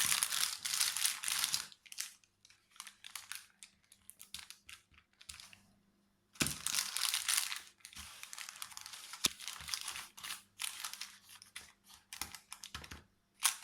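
Butter paper crinkling and rustling in irregular bursts under a rolling pin as the cashew dough is rolled out on it, with a short lull about halfway and a few sharp clicks.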